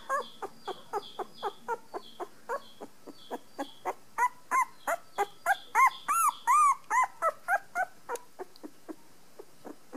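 Newborn Rat Terrier puppy, just under two weeks old, squeaking and whimpering in a quick run of short, high-pitched calls, about three a second. The calls are loudest in the middle and grow fainter near the end.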